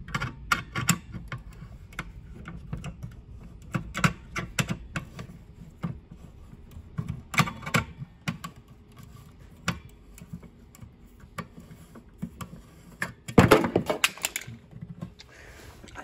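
Irregular small clicks and rattles of a folding hex key set being worked at a Siemens manual pull station to reset it, with one louder clatter about a second long near the end.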